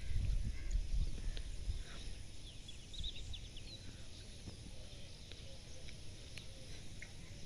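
Wind buffeting the microphone, strongest in the first two seconds and easing after, with a few short, high bird chirps about three seconds in.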